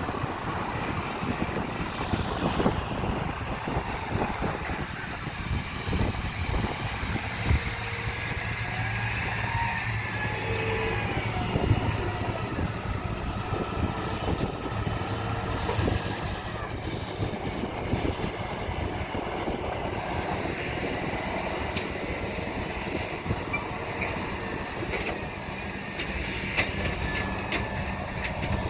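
Harvest machinery working in a wheat field: large diesel engines running steadily, with many small mechanical knocks and a low engine hum that comes in for several seconds about a quarter of the way in.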